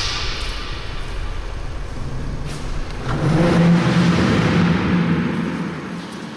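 A sudden burst of noise, then a rushing rumble. About three seconds in it swells, carrying a low pulsing hum, and then fades away near the end.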